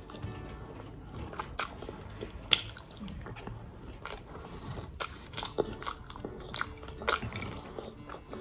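A person chewing and slurping chicken chow mein noodles, with many short, sharp wet mouth clicks, the loudest about two and a half seconds in.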